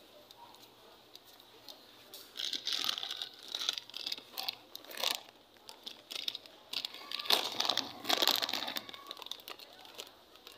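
Plastic rustling and crinkling close to the microphone, in two stretches: from about two seconds in to about five, and again from about seven seconds to nine.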